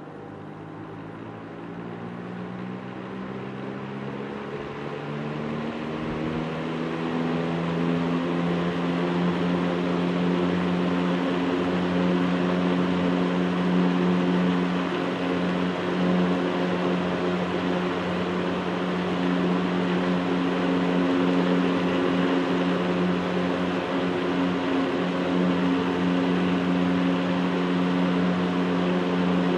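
Panasonic FV-40AFU 16-inch industrial exhaust fan spinning up to speed, its hum rising in pitch and getting louder over the first several seconds, then running steadily at full speed.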